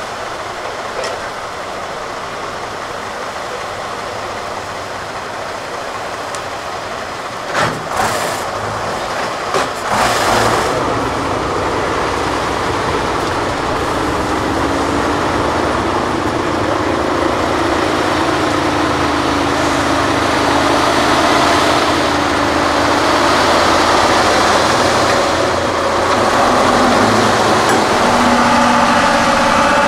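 Tatra 813 8x8 trial truck's diesel engine working under load as it crawls over rough ground, getting louder through the second half. There are a few sharp knocks around eight to ten seconds in.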